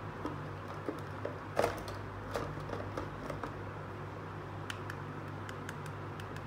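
Hard plastic toys being handled: light clicks and knocks as a toy handbag is picked up and turned in the hands, with one sharper knock about one and a half seconds in and a few small ticks near the end, over a steady low hum.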